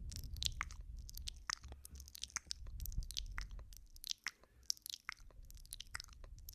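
Close binaural ASMR mouth sounds of ear nibbling and kissing: rapid, irregular wet clicks, smacks and kisses right at the microphone. A low rumble runs under them for about the first four seconds.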